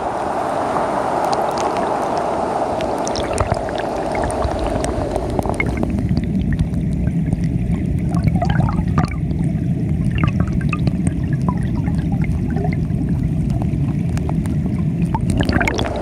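Rocky mountain stream rushing over shallows. About five seconds in the microphone goes under the water, and the rush turns into a muffled low rumble with scattered bubbling clicks. The open rush returns near the end.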